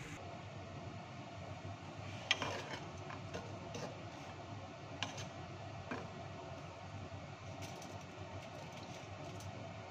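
Wooden spatula knocking and scraping in a frying pan as halloumi cubes are turned in hot oil, over a faint steady sizzle. The sharpest knock comes a couple of seconds in, with lighter ones around five and six seconds.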